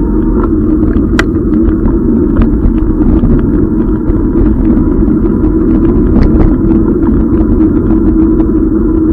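Steady low rumble of wind and road vibration picked up by a camera in a case on a moving e-bike, with many small ticks and rattles from riding over a rough, wet road surface.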